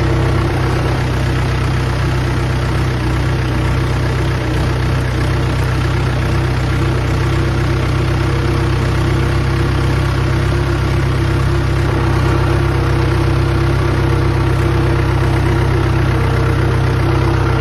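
Mahindra 415 DI XP Plus tractor's 42 hp diesel engine running with a steady, even drone as the tractor drives through wet mud.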